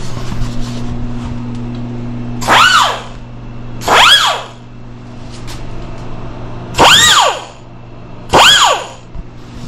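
Air-powered chamfering tool running unloaded in four short bursts, each a whine that rises then falls in pitch as the air motor spins up and coasts down; the tool has just been oiled and is run to circulate the oil. A steady low hum runs underneath.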